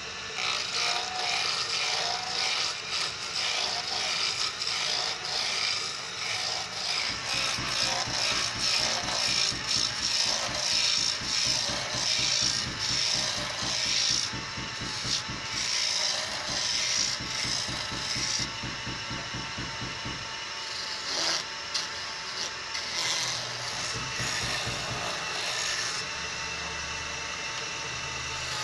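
Electric wood lathe running while a hand-held turning chisel cuts a spinning wooden handle blank, a rapid rattling chatter of the tool on the wood with a high hiss of shavings. It turns a little quieter about two-thirds of the way through.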